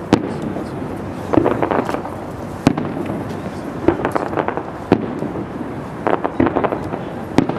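Aerial firework shells bursting: about seven sharp bangs, roughly one every second, several of them followed by a spell of crackling.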